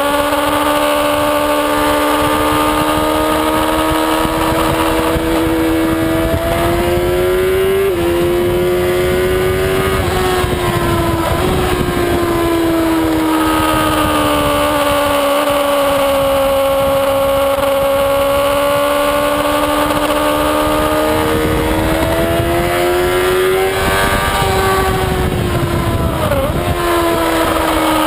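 Sport-bike engine running hard at race pace, its pitch rising and falling through the corners, with brief quick dips about eight and eleven seconds in and again near the end as it changes gear. Steady wind rush on the onboard microphone lies under it.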